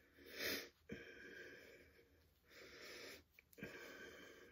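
Faint soft swells of breath and rustling as a cotton-like head scarf is pulled and adjusted on the head, three or four times in a very quiet room.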